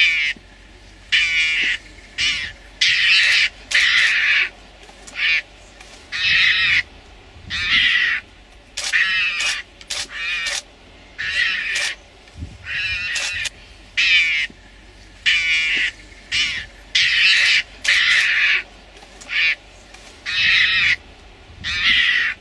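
A mongoose giving harsh, raspy screeching calls in repeated short bursts, each under a second long with brief gaps between. These are defensive threat calls at lions standing over it.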